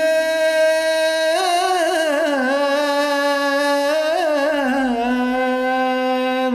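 A man singing one long held note in Turkish arabesk style. About a second and a half in he breaks into wavering melismatic turns, then settles on a lower held pitch that cuts off near the end.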